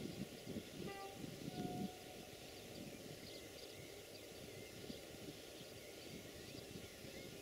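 Diesel locomotive engine running at a distance, a low rumble that is strongest in the first two seconds, with birds chirping over it.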